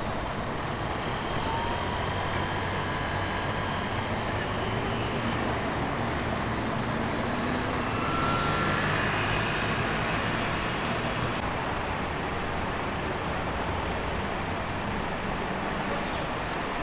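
Heavy road-works machinery running steadily, the diesel engines of asphalt paving equipment. It is a low, even engine hum with hiss that grows slightly louder about eight seconds in.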